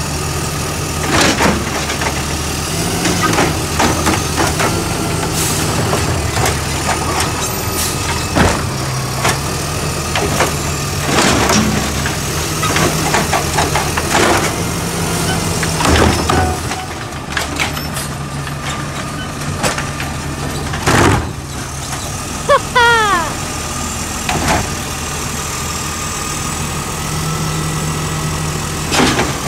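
Natural-gas automated side-loader garbage truck running while its hydraulic arm lifts a wheeled trash cart and tips it into the hopper. The engine note steps up and down as the arm works, and about six loud clanks and bangs come as the cart is slammed to shake the trash out. A few short squeals come near the end.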